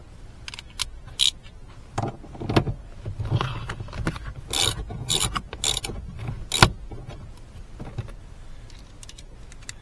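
Hand tools working at the seat's Torx bolts: irregular metallic clicks, clatter and short scraping noises, with one sharp knock about six and a half seconds in.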